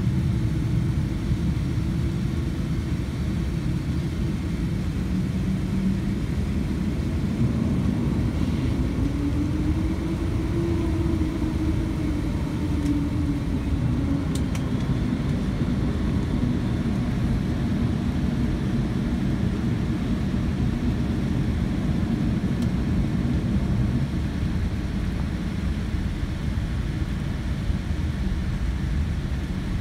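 Steady low cabin rumble of a Boeing 787-10 taxiing on the ground, its GEnx engines at idle. A faint hum in it rises and falls back about a third of the way in.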